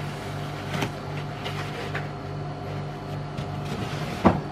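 White packing end caps rubbing and creaking against a PlayStation 5 console as it is slid out of them, with a sharp squeak about four seconds in, over a steady low hum.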